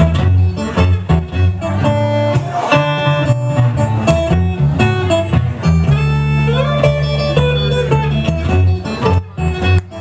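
Acoustic guitar fingerpicked live in a country-blues style: a thumb-picked bass line of low notes runs under a picked melody on the higher strings.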